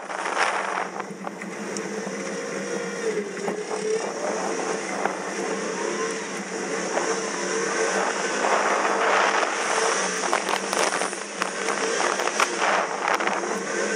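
Car engine running under load, its revs rising and falling as the car drives and turns on packed snow, over a constant hiss of tyres on snow that swells in surges in the second half.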